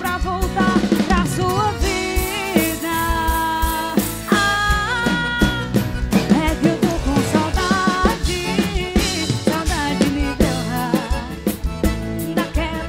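Live band playing an arrocha sertanejo song, with a drum kit keeping a steady beat under a melodic lead line.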